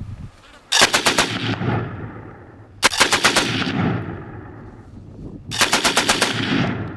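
Machine gun firing three short bursts of about five or six rounds each, the bursts roughly two to three seconds apart, each trailing off in an echo.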